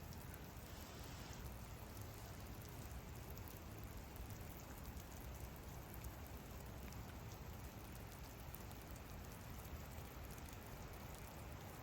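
Steady, soft rainfall with many small drops pattering and ticking.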